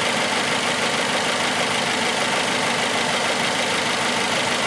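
Suzuki four-cylinder engine idling steadily while misfiring: cylinder 3 is dead from a shorted ignition coil.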